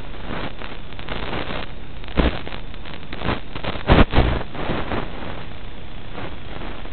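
Steady hiss of static on an analog FPV video link's audio channel, with loud crackling bursts about two seconds in and again around four seconds in, where the signal breaks up.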